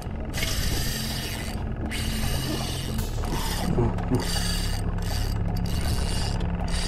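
Spinning reel being cranked as a fish is fought on a bent rod, its gears turning with a continuous ratcheting whir that breaks off briefly a few times. A steady low hum runs underneath.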